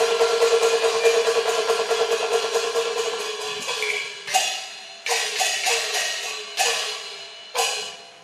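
Cantonese opera gong-and-cymbal percussion: a fast ringing roll for about three and a half seconds, then four separate strikes about a second apart, each ringing and dying away.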